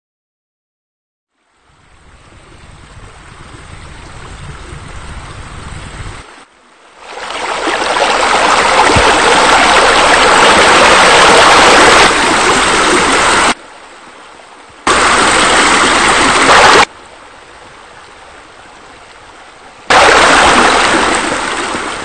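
Rushing water like a waterfall or cascade, a steady loud wash added as a sound effect. It fades in a couple of seconds in, then cuts abruptly between louder and quieter stretches several times before fading out at the end.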